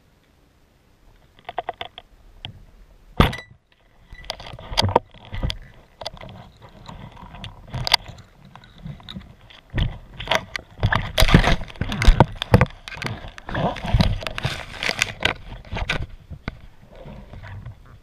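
Speargun shot underwater, heard through the camera housing: a short rattle, then one sharp crack about three seconds in. A long run of irregular clicks, knocks and clatter follows as the steel spear shaft and the speared fish knock against the rocks, busiest in the second half.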